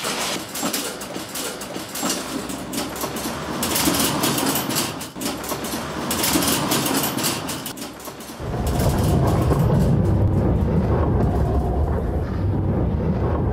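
A metal wire-mesh roll cage rattling and clattering as it is wheeled over cobblestones, then, from about eight seconds in, the low steady rumble of a metal roller shutter rolling down.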